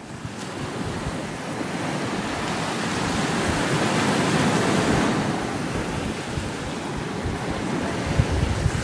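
Field recording of ocean waves washing in and out on a beach: a steady rush of surf that swells to a peak about halfway through and then eases off.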